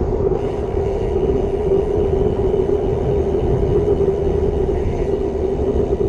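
Steady wind noise on an action camera's microphone mixed with tyre rumble from a road bike riding along tarmac, with a constant low hum running through it.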